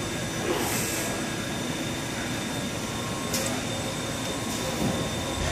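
Milltronics CNC lathe running with its spindle turning at 150 RPM, a steady machine hum with a thin high whine over it. A short hiss comes about half a second in, and a sharp tick a little after three seconds.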